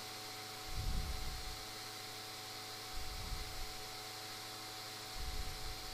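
Steady electrical hum with an even faint hiss, broken by three soft low rumbles about a second, three seconds and five seconds in.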